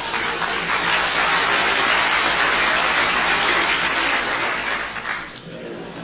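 Audience applauding, growing louder about a second in and dying away near the end into crowd murmur.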